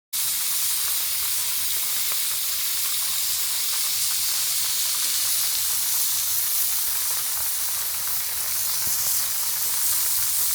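Burgers and smoked sausages sizzling as they cook: a steady hiss with a few faint pops.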